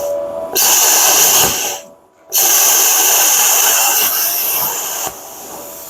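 Plasma cutter cutting into a 1957 Chevy frame: a loud hissing arc and air blast in two long runs, with a short stop about two seconds in and a drop in level near the end. The frame steel is so bad at that spot that the cut is blowing through it.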